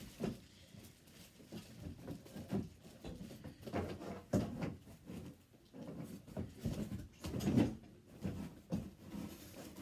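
Parts and packaging of an animatronic Halloween prop being handled and pulled from their box: irregular rustling, knocks and thumps, loudest about seven and a half seconds in.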